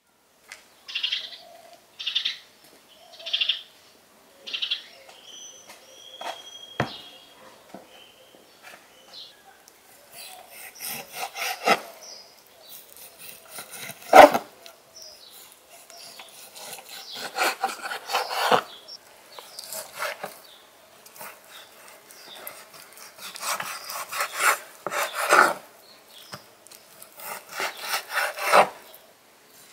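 A knife slicing raw beef on a wooden cutting board: repeated rasping strokes through the meat with sharp knocks of the blade on the board, one knock louder than the rest near the middle. Before the cutting starts, a bird calls four short times, evenly spaced, then gives a thin whistled note.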